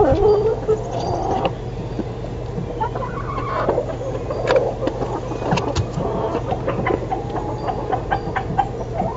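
Chickens clucking now and then over a steady low hum.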